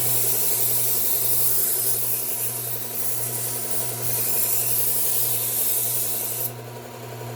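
Knife edge being ground on a running BUCKTOOL belt grinder: a loud hiss of abrasive belt on steel over the steady hum of the motor. The hiss eases briefly around three and four seconds in, and the grinding stops about six and a half seconds in while the motor keeps running.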